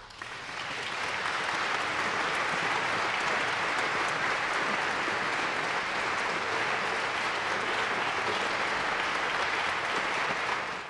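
Audience applauding in a steady, dense patter that swells over the first second and cuts off suddenly at the end.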